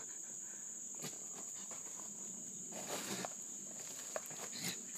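Steady high-pitched chirring of night insects, with a few faint rustles and a soft knock.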